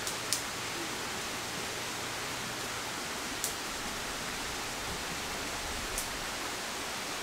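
Steady even hiss of outdoor background noise, with three faint short clicks.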